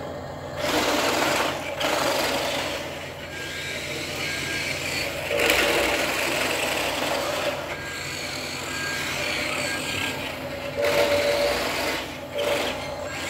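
Small electric drive motor and plastic gearbox of a 1/20 scale RC dump truck whining as it drives, swelling and easing as it speeds up and slows. A faint, short high beep repeats in places.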